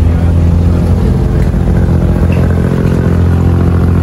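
Abra's inboard diesel engine running steadily under way, a loud, even low drone heard from on board the wooden water taxi.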